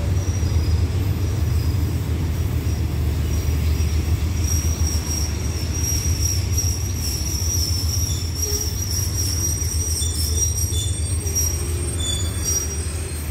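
Passenger train coaches rolling slowly alongside the platform with a low rumble, their wheels and brakes giving a thin high squeal from about four seconds in, as the train slows to a stop.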